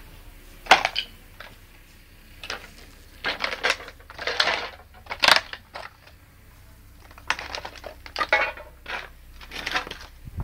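Footsteps crunching over loose broken stone and rubble, with stones clinking and scraping, in an uneven series of crunches.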